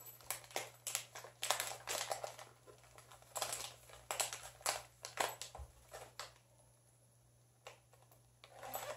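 Packets of label-printer paper rolls rustling and crinkling as they are pushed into the zippered mesh pouch of a hard-shell storage case, in quick irregular crackles and clicks. It goes quiet a little past the middle, then the handling noise comes back just before the end.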